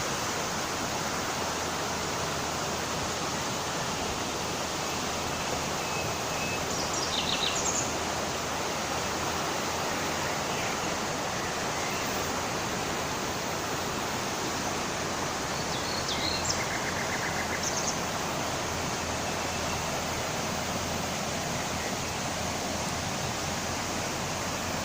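Kodor River water rushing past the bank in a steady, even roar. Small birds chirp briefly above it, about seven seconds in and again around sixteen to eighteen seconds.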